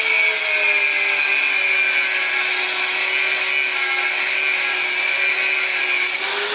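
A small electric motor running steadily with a whine, its pitch sagging slightly and rising again near the end.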